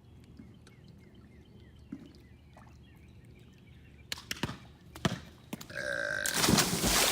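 A man's burp together with a loud splash of water as he goes into a pool, preceded by a few knocks about four and five seconds in.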